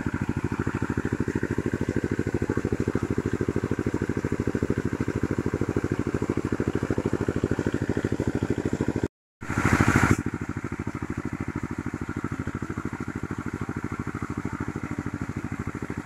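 A small engine running steadily with a rapid, even pulsing beat. Partway through it drops out for a moment, and a brief loud rush of noise comes before it resumes a little quieter.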